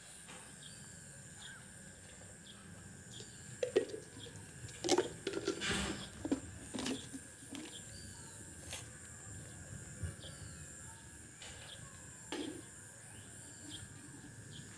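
Birds chirping now and then over a faint steady high tone, with a cluster of knocks and scuffs in the middle and one more knock near the end.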